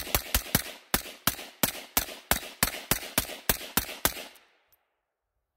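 Aero Precision 12.5-inch AR-10 pistol in .308 Winchester firing rapid semi-automatic shots, about fifteen in four seconds, each with a short echo. It stops abruptly when the rifle jams on a case that did not chamber all the way.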